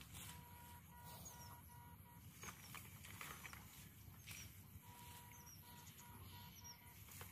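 Near silence: faint outdoor background, with a faint high tone broken into short beeps in two stretches of about two seconds, and a few tiny high chirps.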